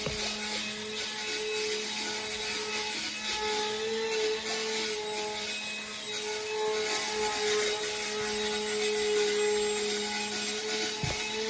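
Micro electric RC plane's motor and propeller buzzing steadily, the pitch wavering slightly as the throttle changes. A short knock near the end.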